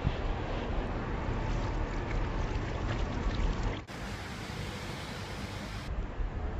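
Steady outdoor background noise, a hissing haze with a heavy low rumble. It breaks off abruptly about four seconds in and carries on with a brighter hiss.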